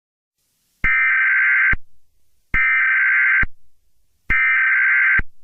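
Emergency Alert System SAME data header: three identical bursts of harsh, buzzing digital screech, each just under a second long with a short gap between them. It signals the start of an emergency alert.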